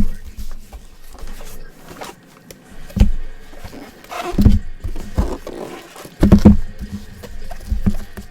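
Handling noises from packaging on a table: a sharp thump at the very start, then more bumps with rustling in between, and a cluster of thumps about six seconds in.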